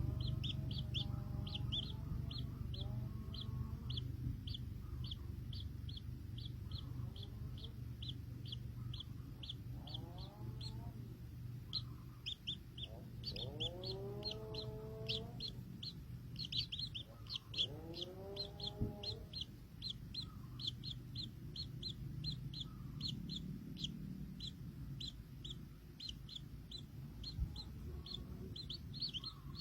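Baby birds peeping steadily, short high chirps about three a second, with a few lower, longer calls around the middle.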